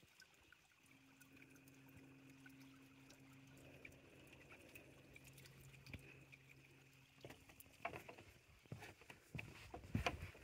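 Near silence with a faint steady low hum for most of the time, ending about three seconds before the end. Then footsteps on a dirt trail and knocks from handling the phone, loudest near the end.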